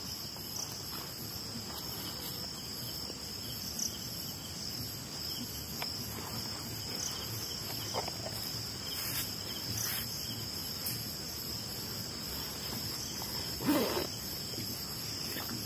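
Crickets and other night insects trilling steadily in high, continuous tones, with a few faint clicks and a short muffled sound near the end.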